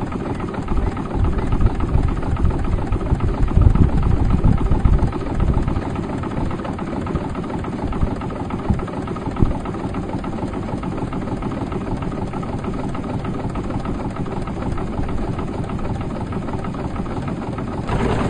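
A small boat's engine running steadily, with heavier low rumbling for the first several seconds.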